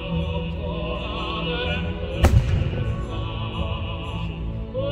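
Operatic music plays, a singer's voice wavering with vibrato over an orchestra. A little over two seconds in, a firework shell bursts with a single sharp boom.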